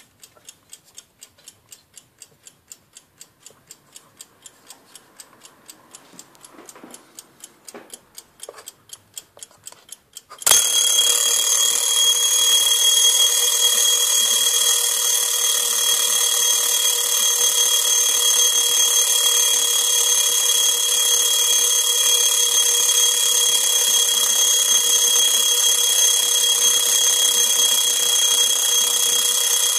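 French Pinocchio automaton alarm clock ticking in a steady, rapid rhythm. About ten seconds in, its alarm bell goes off suddenly and rings loudly and continuously.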